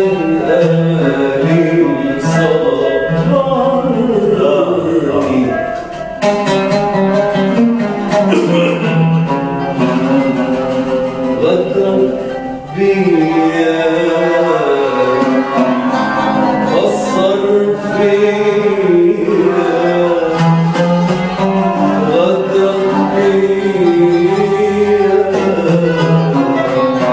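Live Arabic music: an oud and a qanun playing a melody together, with a man singing along.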